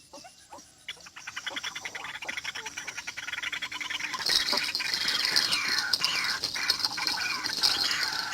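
White-breasted waterhen calls: a fast rattling run of repeated notes, then a string of repeated falling calls that grow louder, with a steady high buzz joining from about four seconds in.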